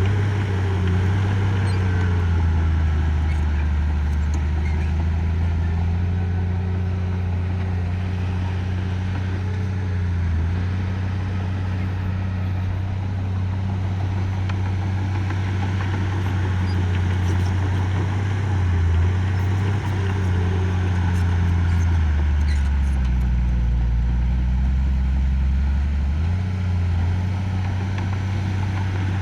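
Diesel engine of heavy earthmoving machinery running steadily. Its pitch dips and shifts a few times as the load changes.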